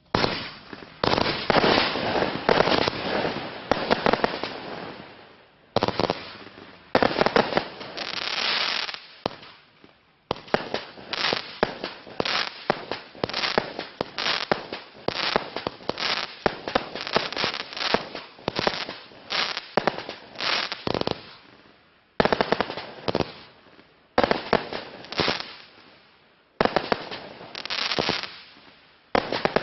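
A 100-shot consumer fireworks compound cake, Klasek 'Big and Bad', firing rapid volleys of shots and aerial bursts. The firing starts abruptly and comes in runs of several seconds, with brief lulls between them as one battery hands over to the next.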